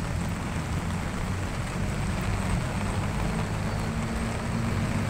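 Steady low traffic rumble of vehicles waiting at an intersection, over the even hiss of rain falling on a wet road.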